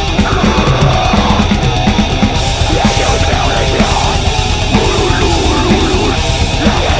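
Heavy metal band recording playing loud and aggressive, with distorted guitars and pounding drums.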